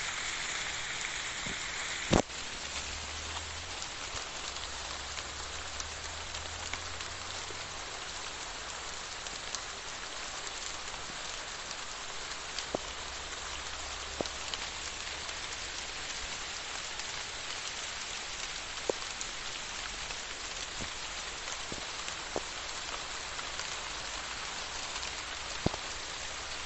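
Light, fine rain falling steadily: an even hiss with scattered sharp ticks. One louder click comes about two seconds in.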